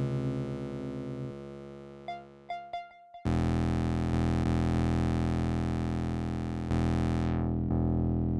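Electronic synthesizer music: held synth tones die away, a few short blips sound about two to three seconds in, then a loud sustained synth chord comes in and turns darker near the end as its high end closes off.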